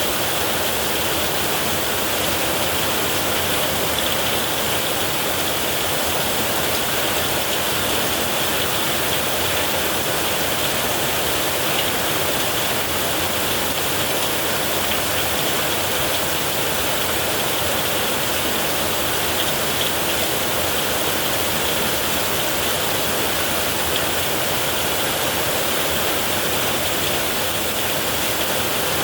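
Heavy rain falling steadily on a tin roof.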